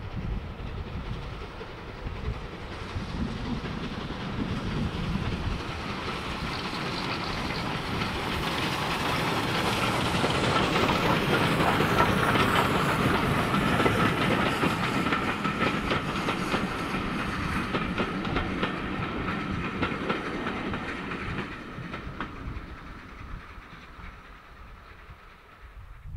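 Rebuilt Bulleid Pacific steam locomotive and its train passing: the engine's working is heard, then the coaches' wheels click over the rail joints. The sound is loudest about halfway through and fades away near the end.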